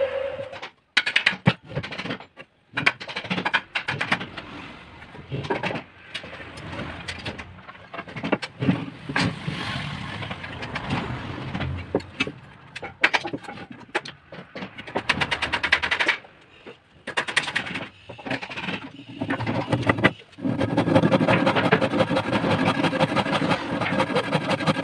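Wooden boards and a steel square being handled on a workbench: irregular knocks, clicks and scrapes. About twenty seconds in, a steady run of hand-saw strokes cutting through a wooden board begins.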